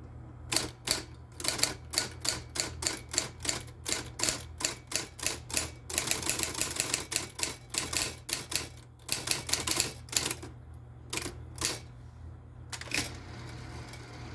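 Royal Aristocrat electric typewriter being typed on: sharp key strikes about three to four a second, running together into a dense rattle around the middle, then thinning out near the end with a brief rushing sound. A steady low motor hum runs underneath.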